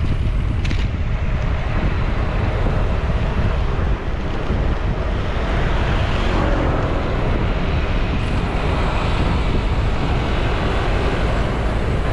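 Steady wind rumble on the microphone of a rider's camera on a moving bicycle, with road traffic under it; a vehicle passing swells the noise about six seconds in.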